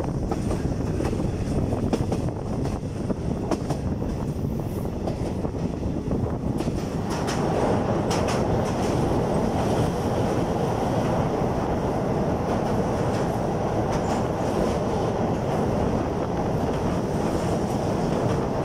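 Wheels of a Thai passenger train clattering over jointed rails, the clickety-clack of the wheels striking the rail joints along with a steady rolling rumble. About seven seconds in the rumble grows louder and fuller as the coach runs onto a steel girder bridge.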